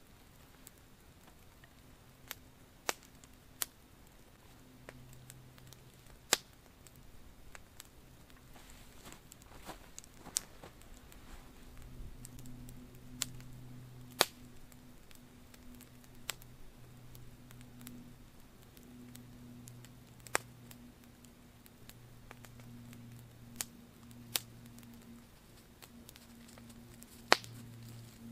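Small twig-kindling campfire catching and crackling, with sharp irregular pops one to four seconds apart, the loudest near the end.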